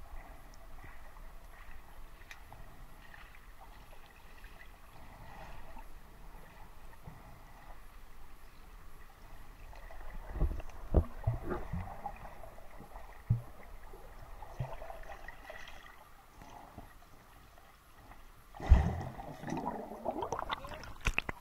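Muffled underwater sound picked up by a submerged camera: a faint steady water hiss, a few dull knocks about halfway through, and near the end a loud sudden plunge followed by gurgling bubbles as a swimmer churns the water.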